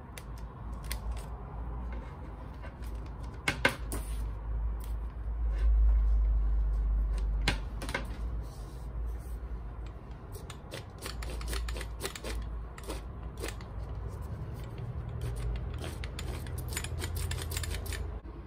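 Handling noise from a Dongcheng angle grinder, not running: low bumps of the tool being moved about, then a dense run of small metallic clicks and rattles as its spindle and flange nut are turned by hand.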